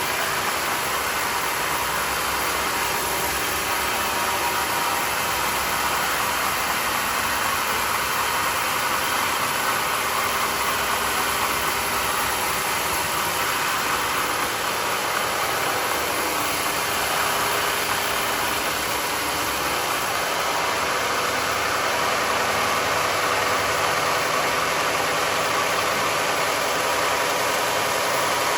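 Sawmill running with a steady mechanical noise, a little louder for the last third.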